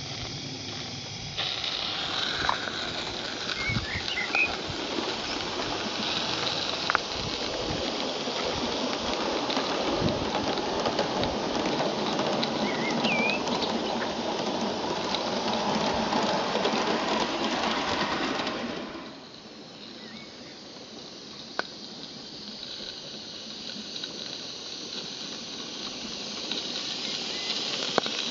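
A steady rushing noise that drops away about two-thirds of the way through, with two short bird chirps early on. Near the end, the running and steam hiss of a Roundhouse Darjeeling Garratt live-steam garden-railway locomotive grow louder as it comes close.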